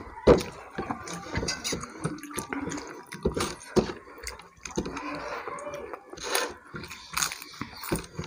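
People eating rice and fish curry with their hands: wet chewing and lip smacks, with fingers mixing rice on plates, in irregular sharp clicks and smacks.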